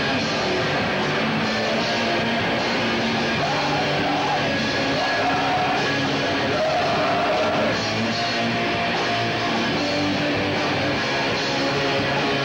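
Live rock band playing loud and steady, with electric guitar and drums.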